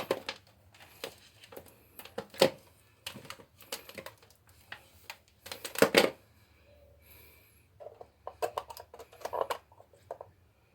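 Irregular clicks and knocks of multimeter test probes being handled and pushed into the slots of a wall socket outlet to measure its voltage, with the sharpest knocks about two and a half and six seconds in.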